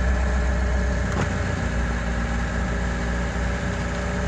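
Lada Niva's carbureted four-cylinder engine idling steadily just after a cold start, running on choke while it warms up.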